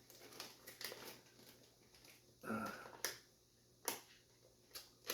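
Faint handling of a package as it is opened and turned over: scattered sharp clicks and light rustling of packaging, with a brief murmur from a person about halfway through.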